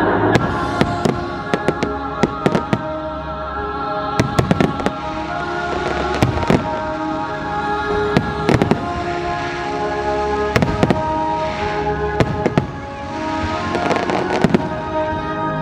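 Fireworks show: many sharp bangs from aerial shells bursting, in irregular clusters, with music playing underneath.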